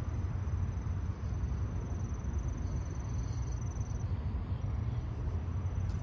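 Crickets trilling in a steady high note, over a steady low rumbling noise.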